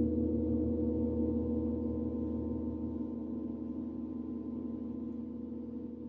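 A large gong ringing out after a single mallet stroke, several steady tones and a low hum slowly fading away.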